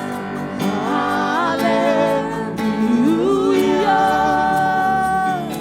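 Live gospel worship music: singers with instrumental backing, sliding up into long held notes, with a sung "hallelujah" near the end.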